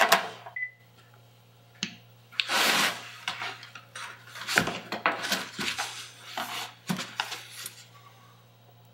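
Cordless phone handset set down in its base with a click and a short beep, then a Ouija board handled in a cardboard box: rubbing and scraping of cardboard, and a series of light knocks as the board is lifted out.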